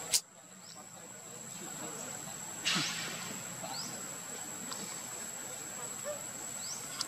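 Steady high-pitched insect drone, with a few short rising chirps scattered through it and a brief rustling burst about two and a half seconds in.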